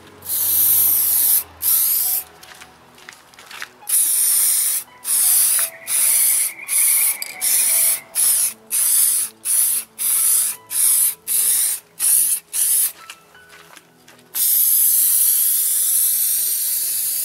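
Aerosol spray can of acrylic clear coat spraying in hissing bursts. There is a long spray about half a second in, then a quick run of a dozen or so short passes, then a long steady spray near the end.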